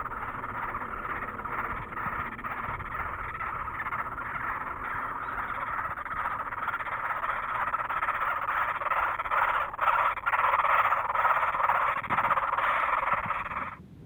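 Great spotted woodpecker nestlings begging from inside the nest hole: a continuous, dense stream of squealing calls, louder in the second half and cutting off suddenly near the end.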